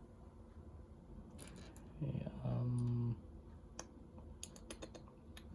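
Small plastic Lego pieces clicking and tapping as they are handled and snapped together, a cluster of clicks early and a quicker run near the end. About two seconds in, a man gives a short wordless hum lasting about a second, the loudest sound here.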